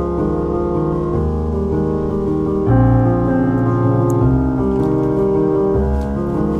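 Background music led by piano, slow held chords changing every second or two.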